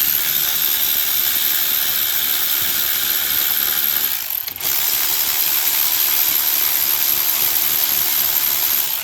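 Cordless electric ratchet spinning a bolt, a steady high whir. It runs in two long stretches with a brief pause about four seconds in.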